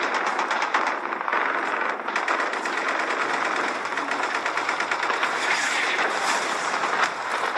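Machine-gun fire sound effect: rapid, unbroken firing of an automatic weapon.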